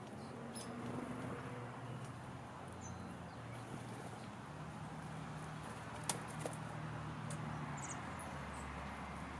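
Garden birds calling faintly, short squeaks and chirps over a steady low hum, with one sharp click about six seconds in.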